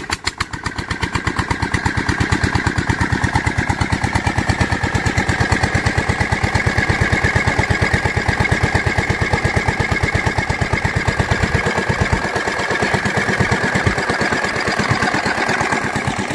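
An engine started for the boat's launch runs with a steady, even chugging beat, getting louder over the first two seconds and then holding steady.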